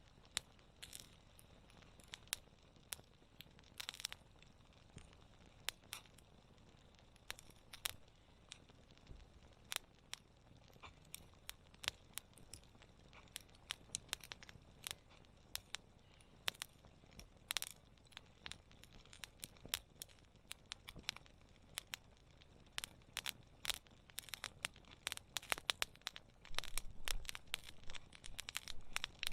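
Wood campfire crackling: irregular sharp pops and snaps over a faint hiss, growing louder and busier near the end.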